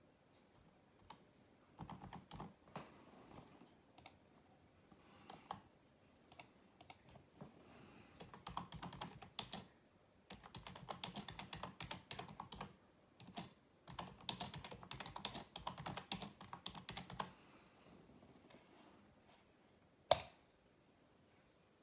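Typing on a computer keyboard: bursts of rapid key clicks with short pauses between, then one sharp, louder click near the end.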